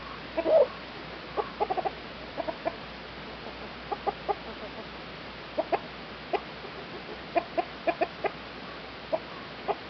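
Backyard hens clucking: short calls, often in quick runs of two to four, scattered throughout.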